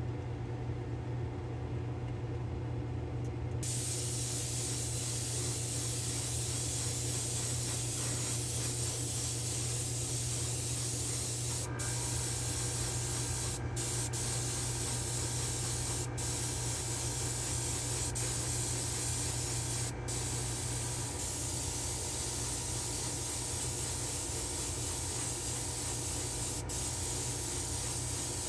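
Paint being sprayed: a steady spray hiss that starts a few seconds in, over a steady low hum.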